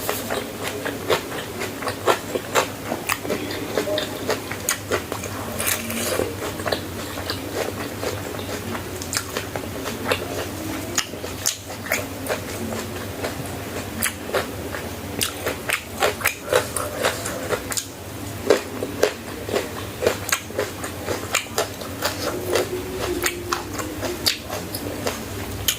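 Close-miked chewing and biting of food, with many sharp, crisp crunches one after another.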